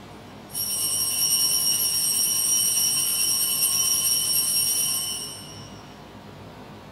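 Altar bells ringing without a break, a steady high jingle that marks the elevation of the chalice at the consecration of the Mass. It starts about half a second in and fades out after about five seconds.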